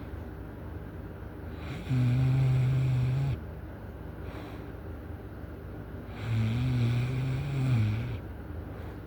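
A person snoring loudly: two long, low, buzzing snores about four seconds apart, each lasting about a second and a half.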